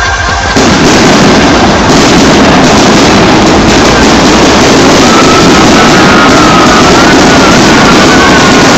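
Fireworks display going off in a dense barrage, loud enough to overload the recording into a continuous roar. About halfway through, a wavering high whistle rises over it.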